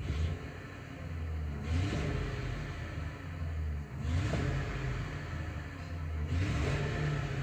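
Ford Crown Victoria V8 engine revved up and let back down repeatedly, about every two seconds. The car has a detected misfire.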